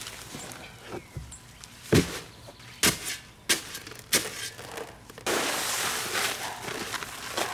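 A shovel blade chops into a bag of Quikrete concrete mix lying in a plastic mixing tub, four sharp hits over about two seconds. Then, from about five seconds in, the dry mix pours out of the opened bag into the tub with a steady hiss.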